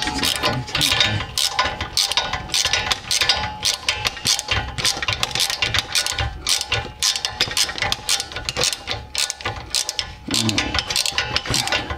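Hand ratchet wrench clicking rapidly as a rear shock absorber bolt is turned out by hand.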